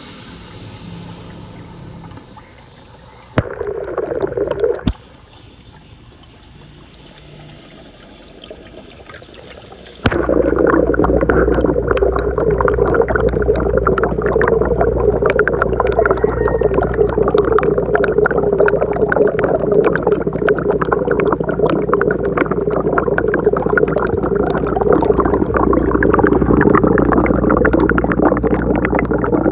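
Aquarium water bubbling and gurgling. It is a fairly quiet hiss at first, with a short louder burst a few seconds in. About ten seconds in it turns suddenly to a loud, steady bubbling full of small crackles.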